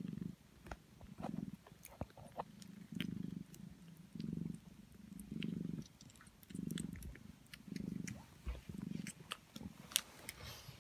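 Sphynx cats purring in slow pulses about once a second, with quick wet clicks of 16-day-old kittens suckling at the teats.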